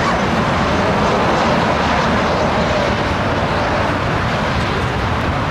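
Twin turbofan engines of an Embraer E-Jet airliner on short final with the landing gear down, a steady rushing jet noise that eases a little near the end.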